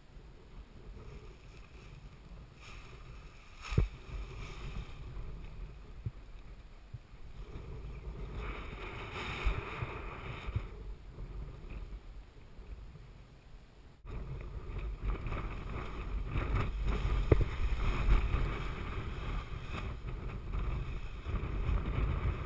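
Wind buffeting the microphone, with rustling of the speed wing's nylon fabric being handled; a single knock near the start, and the wind noise gets suddenly louder a little past halfway.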